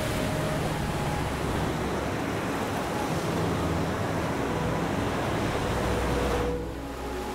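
Heavy surf breaking over offshore rocks: a loud, continuous wash of crashing waves. Its hiss drops away abruptly near the end.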